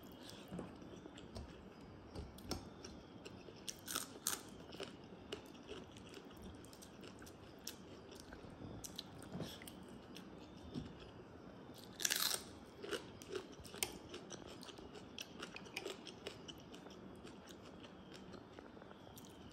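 Close-miked eating sounds: a person chewing and crunching mouthfuls of water rice eaten by hand, with many small sharp crunches and one loud crunch about twelve seconds in.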